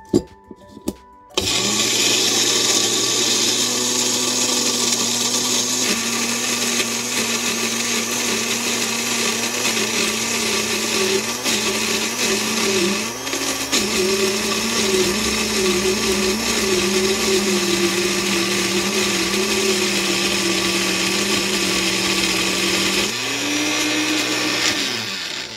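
Small personal blender grinding a marinade of fresh herbs, shallots, garlic and wine: a few clicks as the jar is seated on the base, then the motor runs steadily for over twenty seconds, its pitch wavering as the contents churn and rising shortly before it stops.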